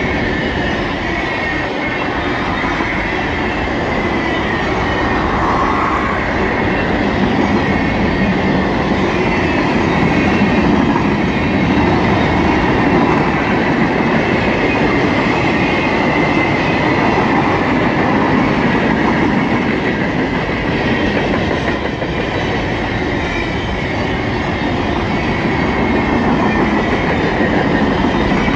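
Freight cars of a long train rolling steadily past at close range: a continuous rumble of steel wheels on rail, with a thin high squeal wavering over it.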